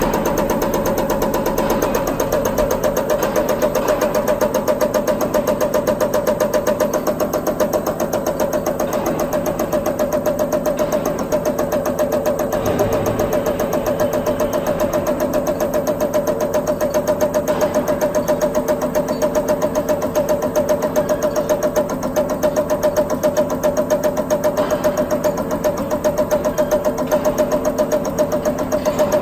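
EUI/EUP cam box on a diesel injector test bench, running steadily at about 450–500 rpm and driving an electronic unit injector or pump through its test steps. It makes a rapid, even mechanical ticking and knocking as the cam strokes and the unit fires while its fuel delivery is measured.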